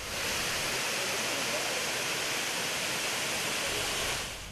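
Waterfall: a steady rush of falling water over rock that fades out near the end.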